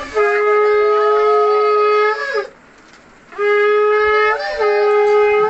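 Conch shell (shankha) blown in two long steady blasts. The first lasts a little over two seconds and the second starts about three and a half seconds in, each breaking and wavering in pitch as it ends.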